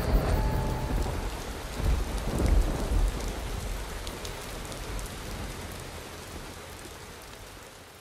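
Steady rain with low rolls of thunder about two seconds in, the whole sound fading out gradually.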